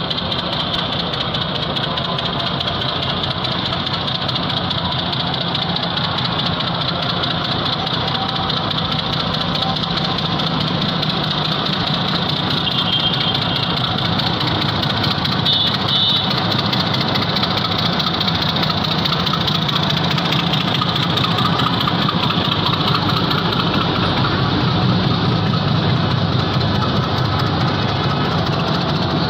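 Diesel locomotive engine running steadily as it hauls a passenger train slowly past, growing a little louder over time as it comes closer.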